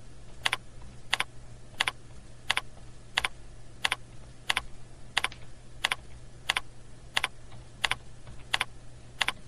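Computer keyboard keystrokes: single sharp clicks at a very even pace, about three every two seconds, as numbers are typed into cells and the down arrow is pressed between them. A low steady hum runs underneath.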